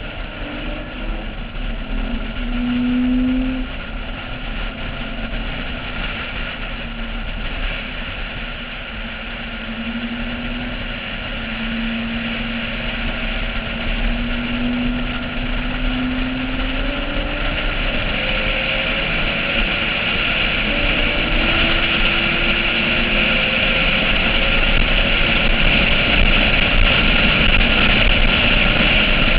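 Porsche 996 at track speed, heard from a camera on its roof: a rush of wind over the microphone that grows louder about two-thirds of the way through, with the flat-six engine's note faintly rising and falling underneath as it speeds up and lifts off.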